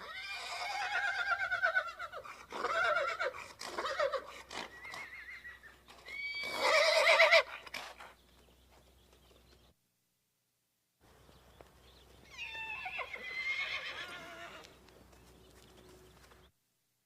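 Horse whinnying: several whinnies with a quavering, shaking pitch, the loudest about six seconds in, then after a short break a fainter whinny.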